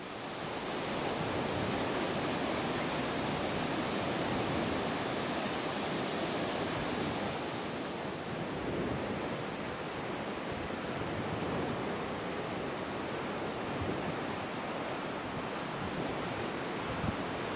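Ocean surf breaking and washing over shoreline rocks, a steady rushing that fades in at the start.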